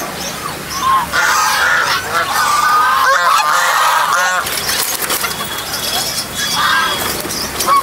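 Domestic geese honking repeatedly, several calls overlapping, with a run of quick calls about halfway through.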